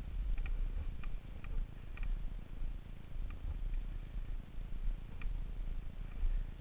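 Low, uneven rumble of wind buffeting the camera's microphone, with a few faint short squeaks.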